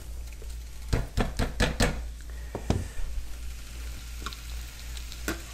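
Spatula knocking and scraping against a wok while stir-frying vegetables: a quick run of clicks about a second in, then a few scattered knocks, over a low sizzle.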